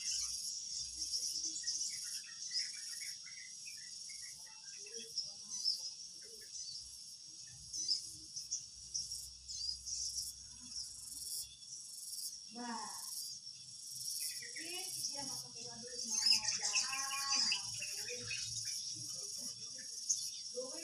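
Steady high-pitched insect chirping, like a cricket chorus, with a few short pitched, voice-like sounds in the second half.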